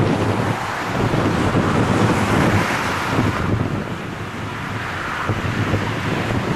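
The four CFM56 turbofans of an Airbus A340-300 running steadily as the airliner taxis and turns, their exhaust kicking up dust, with wind buffeting the microphone.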